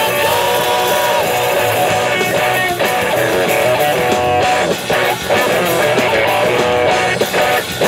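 Rock band playing live: two electric guitars over a drum kit.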